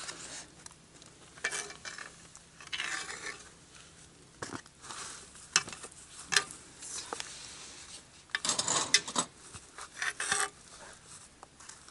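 Metal serving spoon scraping and knocking against a cast-iron camp oven as lamb-shank stew is ladled out onto a plate, in irregular clinks and scrapes, busiest about eight to nine seconds in.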